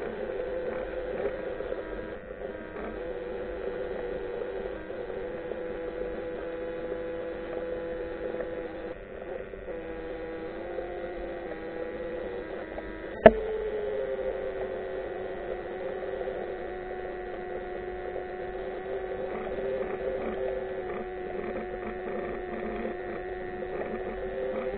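Underwater hum on a seabed camera: a steady drone made of a few tones that slowly shift in pitch. About halfway through there is one sharp click, and the tones slide a little lower just after it.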